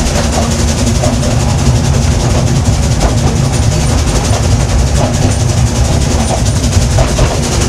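A steam railway carriage running along the track, heard from inside the coach: a steady, loud rumble of wheels and coach body.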